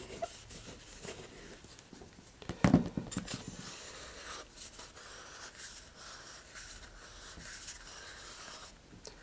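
Quiet handling of a cardboard rocket body tube and a plastic wood-glue bottle: a single knock about two and a half seconds in as the bottle is set down on the cutting mat, then light rubbing as a finger smooths a glue fillet around the centering ring inside the tube.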